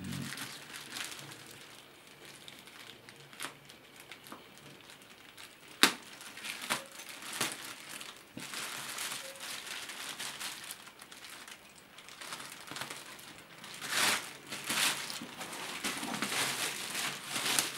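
Clear plastic packaging bag crinkling and rustling in irregular bursts as a backpack is handled and pulled out of it, with one sharp snap about six seconds in.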